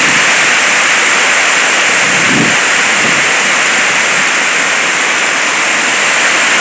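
Heavy rain pouring down, a loud steady downpour with drops splashing on the ground.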